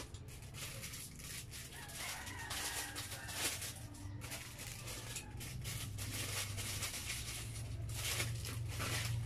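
Close-miked chewing and mouth sounds: a dense, irregular run of wet clicks and smacks while food is eaten, over a steady low hum.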